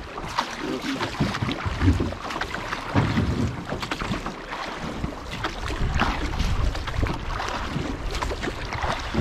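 Water splashing and rushing around a Hyde drift boat and its oar blades as the oars are worked on a choppy river, with wind buffeting the microphone as a steady low rumble.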